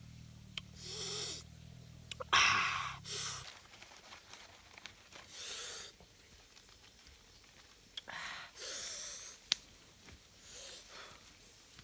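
A person taking about six sharp, breathy breaths through the mouth, each under a second, with a few small clicks in between, typical of someone whose mouth is burning from chili-hot food. A low hum stops about three and a half seconds in.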